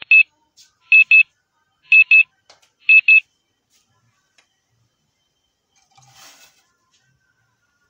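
Four loud electronic double beeps at one high pitch, one pair a second, then silence. About six seconds in comes a brief faint scrape as curry paste is tipped from a bowl into the pot.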